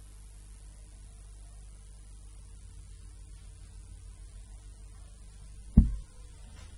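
Steady low electrical hum under a faint hiss, broken near the end by a single loud, short low thump.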